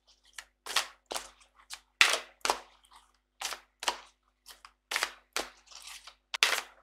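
A deck of Nature's Whispers oracle cards being hand-shuffled: the cards slap and snap against each other in short, irregular clicks, about two or three a second.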